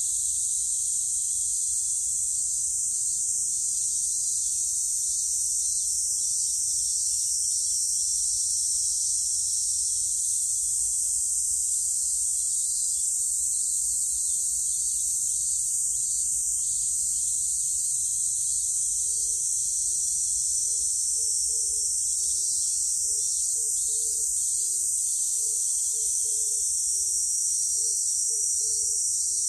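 Chorus of cicadas making a steady, high-pitched shrill drone that holds at one level throughout. About two-thirds in, a low call starts repeating about twice a second beneath it.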